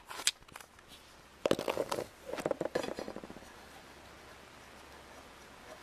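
A plastic toy horse figure is handled and set down on a wooden floor: a couple of sharp clicks, then about a second and a half of clattering taps and scrapes. After that only faint room tone remains.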